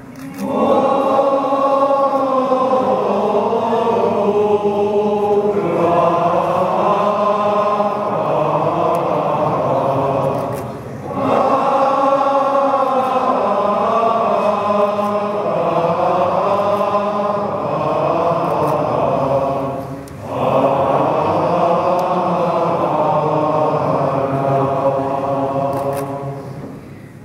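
A group of voices singing a slow traditional religious chant in three long phrases, each ended by a short breath.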